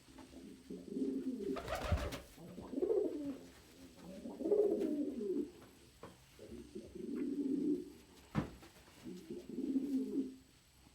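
Domestic pigeon cooing in a small room: five low, rolling coo phrases of about a second each. A loud brief clatter about two seconds in and a sharp click past eight seconds.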